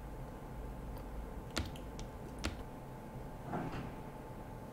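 Three sharp computer keyboard clicks about half a second apart, then a soft rustle, over a faint low hum of room noise.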